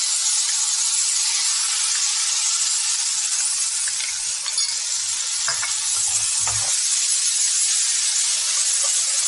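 Vegetables sizzling steadily in a hot non-stick grill pan as a sauce is poured in, with a wooden spatula stirring and giving a few light knocks and scrapes in the middle.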